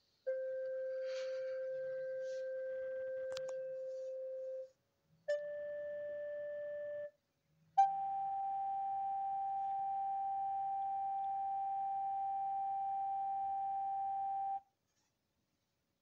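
Underclocked iRobot Roomba's speaker playing its beeps stretched out into three long steady tones, each higher than the last and each starting with a click; the third lasts about seven seconds, then it stops.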